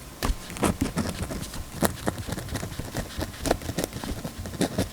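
Ballpoint pen writing on paper, with the red ink of a Uni-ball Jetstream multi-pen: irregular short scratches and taps of the pen strokes.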